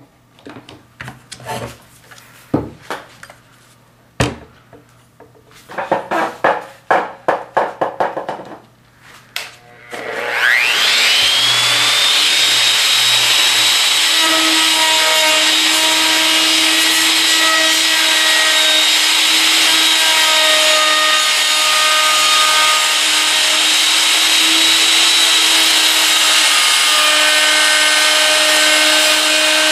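A few knocks and a quick run of rasping strokes as the workpiece is handled, then a handheld router motor spins up with a rising whine about ten seconds in and runs steadily at full speed, its tone wavering slightly as it cuts a chamfer along the wood's edges.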